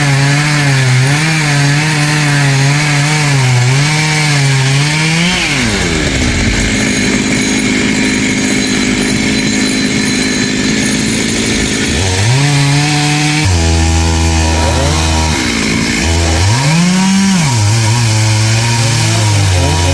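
Chainsaw running at high revs; its pitch drops and turns rough for several seconds while it cuts into the tamarind tree's wood. It then comes back up, runs lower for a couple of seconds, and revs up again.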